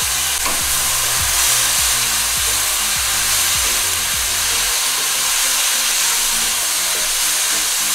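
Rice noodles, beef and vegetables sizzling steadily in a hot nonstick wok as they are stir-fried with a wooden spatula just after the sauce goes in.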